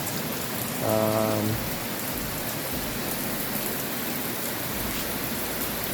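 Heavy rain falling steadily, with a brief voice sound, like a short hum, about a second in.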